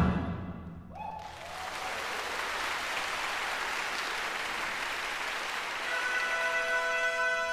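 Audience applause in a concert hall, starting as the last percussion strike rings away and continuing evenly. About six seconds in, the orchestra's reed winds come in with held notes over the applause.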